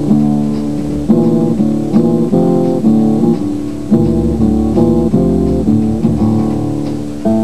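Background music: a run of chords over a low bass line, the chords changing about every half second.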